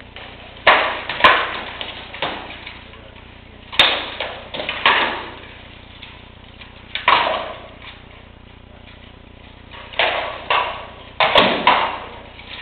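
Rattan sword blows striking shields and armour in armoured combat: sharp clacks and thwacks in quick clusters of two or three, about eleven in all, each ringing briefly off the arena's hall.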